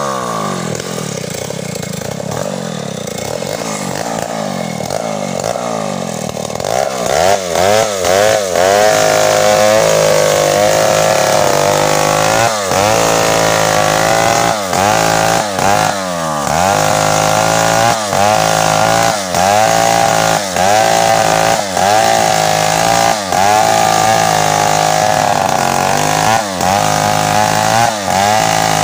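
Stihl two-stroke chainsaw running at part throttle for the first several seconds, then at full throttle from about seven seconds in, sawing through a tree trunk. Its engine note dips and recovers every second or two as the chain loads up in the wood.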